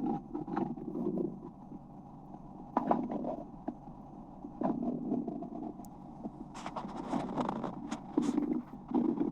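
Stomach rumbling heard close up: irregular low gurgles that come every second or two, with a harsher, louder stretch a little past the middle.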